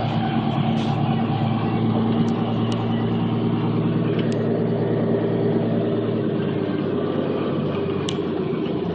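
John Deere 4440's six-cylinder diesel engine running steadily, its low hum easing slightly a little under seven seconds in.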